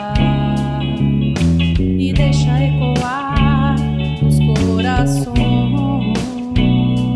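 Music: a band with guitar over a steady bass line and drum beat, with a wavering lead line.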